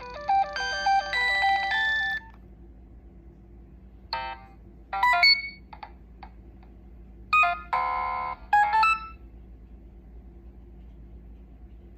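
Nokia 6016i phone playing its built-in gallery ringtones: a busy electronic melody of quick stepping notes ends about two seconds in. After a pause of about two seconds, another ringtone plays a few short phrases of electronic tones and a brief dense chord, then stops, over a faint steady hum.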